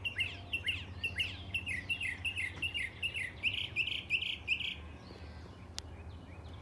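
A songbird singing a fast run of repeated chirping notes, about three a second, that turn buzzier before stopping about two-thirds of the way through, over a steady low hum. A single sharp click comes near the end.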